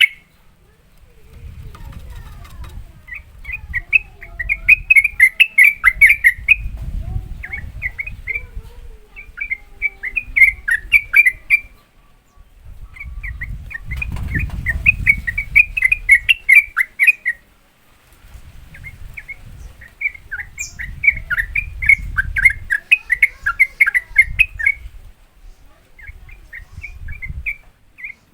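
Sooty-headed bulbul (trucukan) singing in 'ropel' style: bouts of fast, rolling chirped notes, each lasting a few seconds with short pauses between, over a low rumble.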